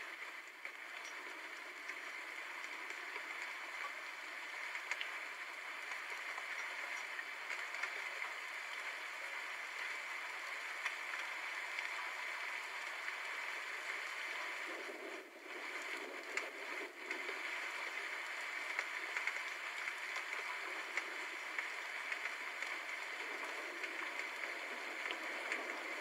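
Steady rain falling, an even hiss flecked with fine pattering drops, which dips briefly twice about fifteen seconds in.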